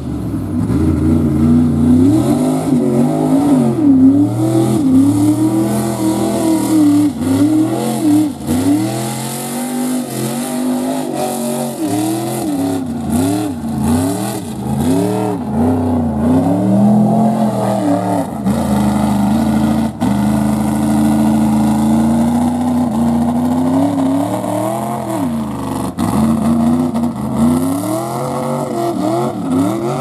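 A big-horsepower lifted Jeep's engine revving hard over and over as it powers through a mud pit. The pitch climbs and drops every second or two, then holds high for several seconds near the middle before the rapid revving resumes.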